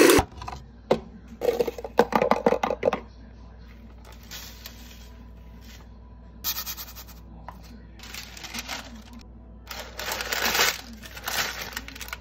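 A plastic food processor lid and pusher clicking and rattling as they are unlocked and lifted off, then scraping and paper rustling in short bursts as crumbs are handled in a parchment-lined pan.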